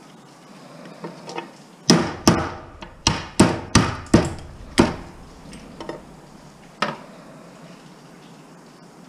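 Hammer striking scrap to knock parts off: a quick run of about nine sharp blows over some three seconds, then a single blow about two seconds later.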